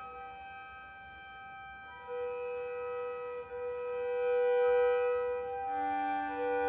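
A violin and double bass duo playing a raga in just intonation, holding long, steady bowed notes. The first two seconds are quieter, then a strong sustained note enters about two seconds in, and a lower held note joins it near the end.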